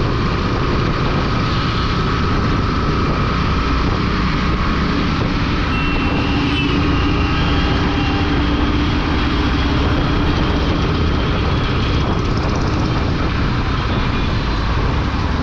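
Motorcycle riding along in traffic: a steady engine note with wind rushing over the microphone.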